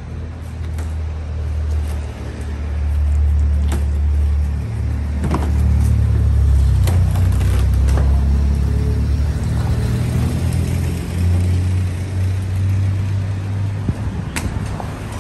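A motor vehicle's engine running, a steady low hum that rises and falls a little in level, with scattered sharp clicks and knocks.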